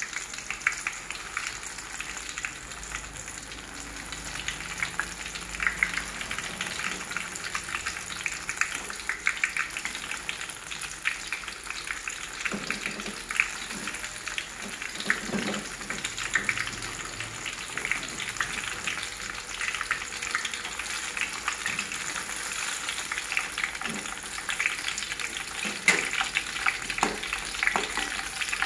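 Battered banana fritters deep-frying in hot oil in a wok: a steady, dense crackling sizzle. A few soft knocks come in around the middle and again near the end.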